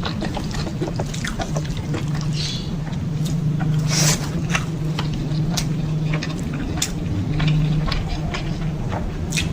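Close-miked chewing and eating of chicken and stink beans in chili sauce: a run of irregular wet mouth clicks and smacks over a steady low hum.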